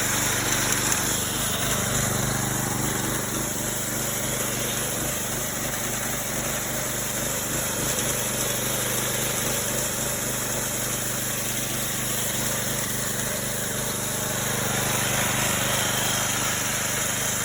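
Chainsaw driving a homemade slabbing mill, its engine running steadily at a constant pitch.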